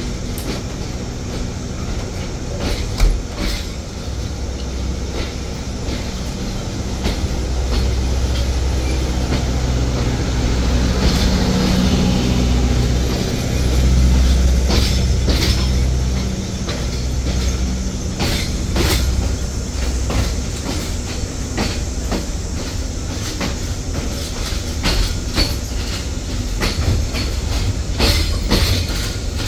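Passenger train running on the track: a steady low rumble from the wheels and carriage with irregular clicks over rail joints. The rumble swells for several seconds around the middle and then settles again.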